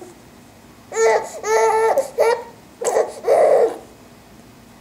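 A baby laughing and babbling in several short, high-pitched bursts starting about a second in, one ending in a breathy laugh; she has the hiccups, which break up her laughter.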